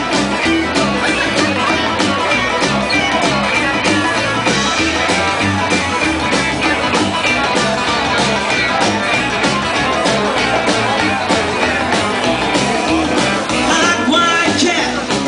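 Live rockabilly band playing an instrumental break: lead guitar over upright bass, strummed acoustic guitar and drums, with a steady driving beat.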